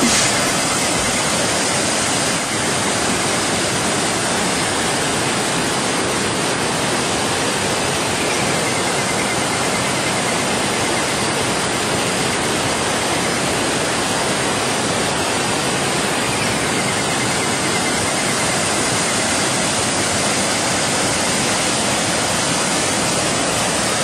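Steady, even rush of white water pouring over a rocky stream cascade at a small waterfall.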